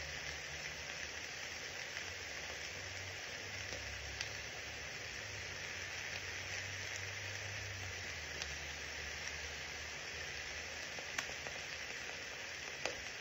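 Chopped vegetables and meat frying in a stainless steel skillet: a steady sizzle with scattered small crackles, and a couple of sharper pops near the end. A low hum runs underneath and comes and goes.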